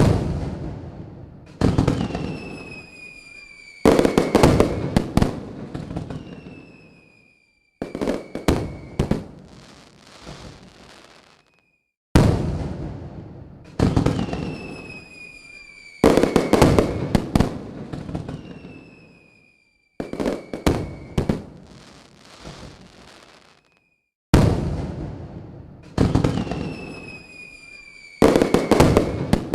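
Fireworks going off: whistling rockets falling slowly in pitch, cracks and bangs that die away, and bursts of crackling. The sound cuts off abruptly several times, and the same sequence of whistles and bangs repeats about every twelve seconds.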